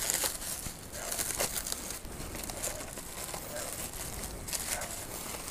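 Clear plastic wrapping crinkling and rustling with many small crackles as it is handled and pulled off a motorcycle visor.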